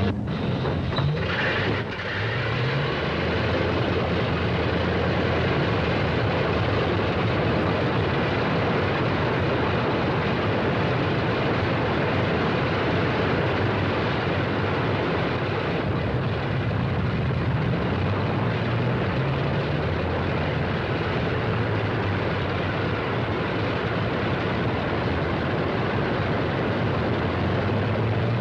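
Piston engines of a four-engined heavy bomber droning steadily, with a low hum that wavers slightly.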